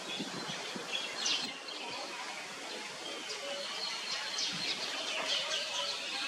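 Birds chirping, many short high chirps scattered over a steady outdoor background noise.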